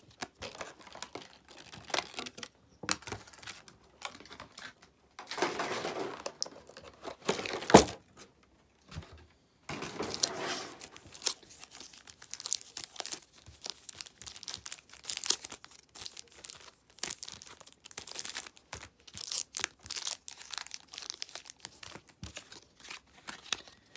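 Cardboard and plastic packaging of a Pokémon trading card collection box being handled and pulled open: irregular crinkling, rustling and tearing with scattered clicks and taps, one sharp click about a third of the way in.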